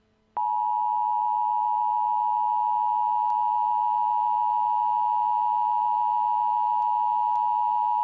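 Emergency Alert System attention signal: a loud, steady two-tone alarm that starts a moment in and holds unbroken for about eight seconds, announcing the broadcast of a civil emergency message.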